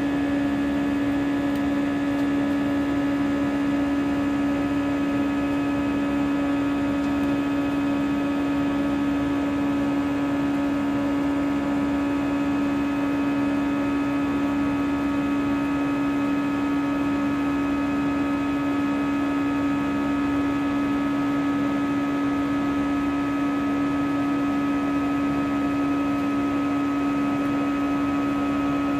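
Steady cabin drone of an Airbus A321-211's CFM56 turbofan engines running at a constant setting: an unchanging low hum with many higher steady tones over a rushing hiss.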